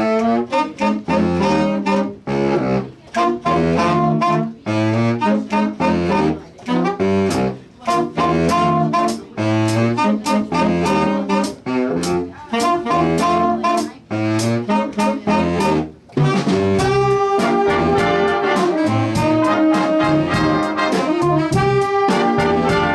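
High school jazz lab band, saxophones and brass over bass and drums, playing short, punchy chords with brief gaps between them. About 16 seconds in, the horns change to held notes over a steady drum beat.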